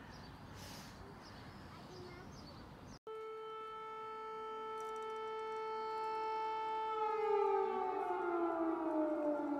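Faint outdoor ambience, then after an abrupt cut an air-raid siren sounding one steady tone that slowly grows louder. In the last few seconds its pitch slides downward as it winds down.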